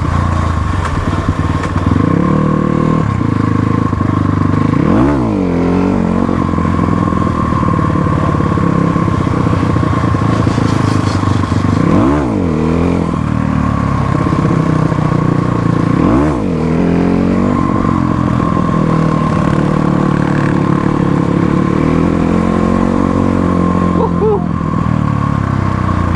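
Motorcycle engine running under way, its note dropping sharply and climbing back three times as the rider shifts or eases off and reopens the throttle.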